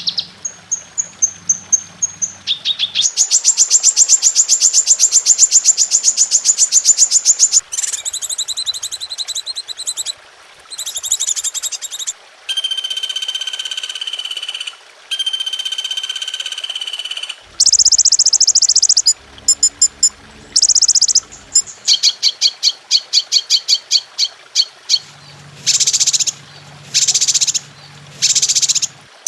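A medley of recorded songbird songs played as masteran, tutor songs for training caged birds. Different calls follow one another every few seconds: long fast trills, passages of steady high whistled notes and bursts of short repeated chirps.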